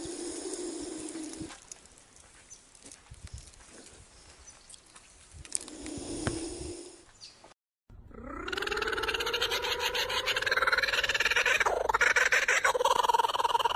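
Two drawn-out animal calls about five seconds apart. After a brief break, livestock start bleating loudly and without pause, the call sliding up in pitch at its start and then quavering.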